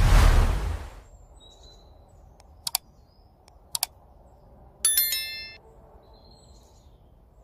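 A whoosh sound effect, then two quick double mouse clicks and a bright bell ding from a like-and-subscribe animation, with faint birdsong from the woods underneath.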